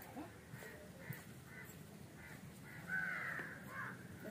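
Crows cawing: a run of short calls, with a longer, louder caw about three seconds in.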